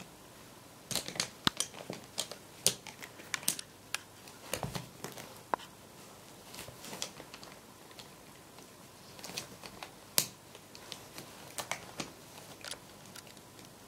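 A cat playing with a bundle of foil-wrapped pencils: irregular sharp clicks and crinkles as the pencils knock together and are pawed, coming in clusters with short pauses between.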